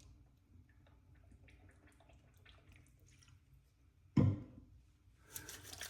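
Witch hazel being applied to a freshly shaved face by hand: faint small wet dabs and drips, one loud thump a little over four seconds in, then a flurry of quick crackly pats near the end.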